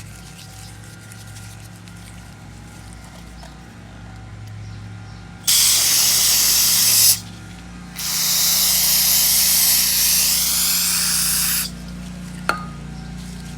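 Two hissing blasts of pressurized spray on lawnmower carburetor parts during cleaning: the first lasts about a second and a half, starting about five seconds in, and the second runs nearly four seconds. A short sharp click follows near the end.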